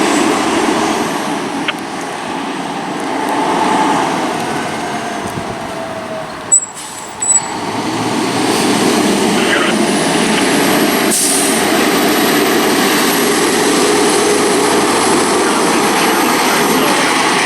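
Fire truck engine running steadily, with two short sharp sounds about six and a half and seven seconds in and a brief hiss of air about eleven seconds in.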